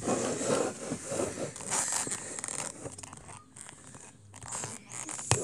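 Handling noise from the camera being picked up and moved about on a wooden table: irregular rustling and scraping close to the microphone, quieter in the middle, with a loud scrape or knock at the very end.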